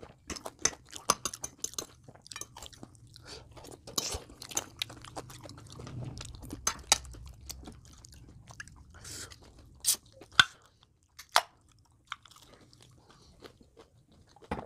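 Close-miked crunching and chewing of crispy breaded fried chicken: an irregular run of sharp crunches with quieter gaps, and a few louder single clicks past the middle.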